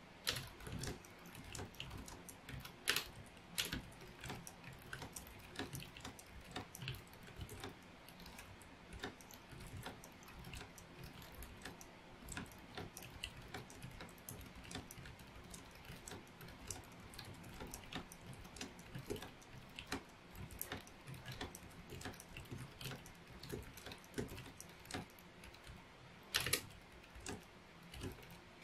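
Fast continuous typing on a Logitech K780 wireless keyboard's round keys: a quiet, rapid, uneven patter of key clicks, with a few louder strikes about three seconds in and near the end.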